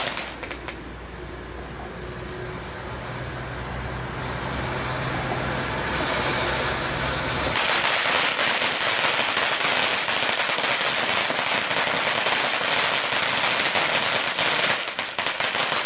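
Iron Man 'Fast Forward' firework fountain spraying sparks with a continuous hiss and crackle. The spray gets louder and brighter about halfway through, and a run of sharp crackling pops comes near the end. A low steady hum runs under the first half.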